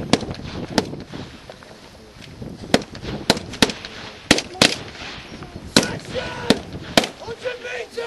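Military rifles firing single shots in an irregular string, about ten cracks spaced from a third of a second to two seconds apart, as suppressing fire in an infantry section's fire-and-movement drill.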